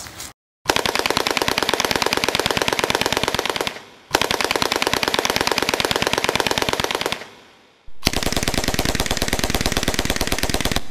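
Automatic gunfire in three long bursts of rapid shots, each about three seconds, each starting abruptly and trailing off.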